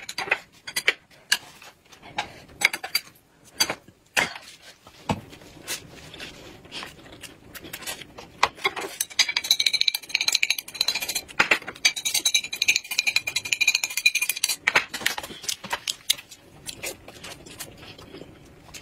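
Chopsticks clicking and tapping on ceramic plates while someone eats. Through the middle, for about five seconds, there is fast, dense scraping with a steady high-pitched ringing as food is raked off a tipped plate.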